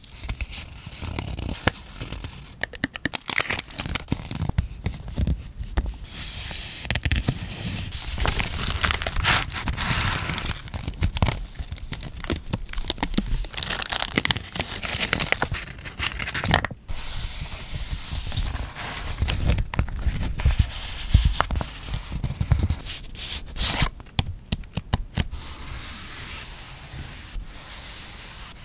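Close-miked ASMR handling of stationery: crinkling, crackling and tearing of washi tape and a clear plastic sticker sleeve, with many small sharp clicks. Near the end it settles into a softer steady rubbing of fingertips over printed paper.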